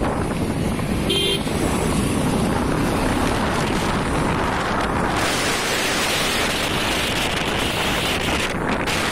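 Road traffic noise with wind rushing over the microphone of a motorcycle rider, and a short vehicle horn beep about a second in.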